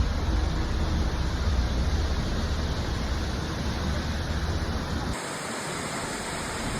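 Steady rushing noise of a waterfall pouring down a cliff into the fjord, with a low rumble underneath. About five seconds in, the low rumble drops out abruptly and the hiss changes character.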